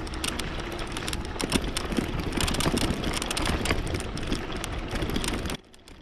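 Riding noise from a Gen3 Flex hybrid e-bike on a sandy dirt trail: a steady rushing noise from the tyres with many small knocks and rattles from the bike over the rough ground. It cuts off suddenly shortly before the end.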